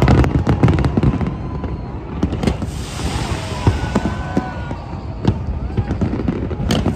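Aerial fireworks display: a dense run of sharp bangs and crackles, thickest in the first second, then continuing in scattered reports over a low rumble.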